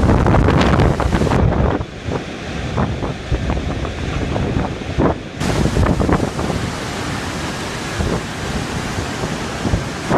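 Typhoon wind gusting hard and buffeting the microphone, loudest in the first two seconds, then a steadier rushing roar with scattered short clicks.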